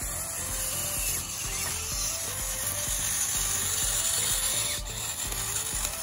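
Radio-controlled Bruder John Deere toy bulldozer crawling on its plastic tracks: a steady mechanical rasping and grinding from its drive and tracks, over a constant high hiss.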